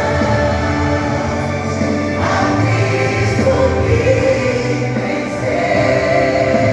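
A vocal group singing a gospel worship song with instrumental backing, in long held notes.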